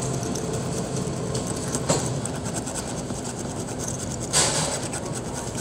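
A metal key scraping the latex coating off a scratch-off lottery ticket in quick repeated strokes, with a louder rasp about four and a half seconds in, over a steady low background rumble.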